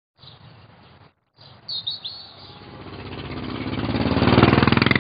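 A few brief bird chirps, then a motorcycle engine running with a fast, even pulse, growing steadily louder as it approaches and at its loudest near the end.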